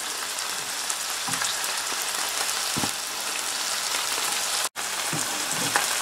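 Sea bass fillets frying skin-side down in hot oil in a non-stick frying pan, with potato cakes and spring onions. It makes a steady sizzle with fine crackling spatters as the salted skin crisps. The sound cuts out for an instant about three-quarters of the way through.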